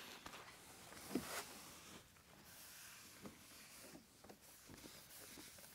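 Very faint rubbing of a microfiber towel wiping over a plastic headlight lens that has just been wet-sanded, with a few soft taps; otherwise near silence.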